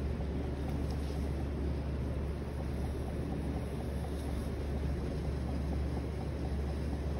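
Electric potter's wheel motor running with a steady low hum while wet clay is centered on the spinning wheel head.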